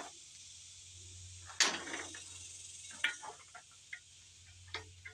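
Hand tools clinking on metal while unbolting an engine's water pump: one louder clatter about one and a half seconds in, sharp clicks near three seconds and near the end, and light ticks between, over a steady high buzz of insects.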